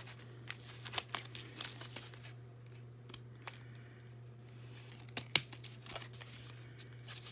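Mail packaging being handled and opened by hand: paper and plastic crinkling and tearing in scattered small crackles and clicks, with one sharper, louder crackle about five seconds in.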